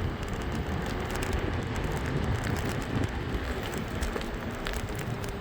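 Electric scooter riding over rough ground: a steady rumble and rattle of the wheels and frame, with wind buffeting the microphone.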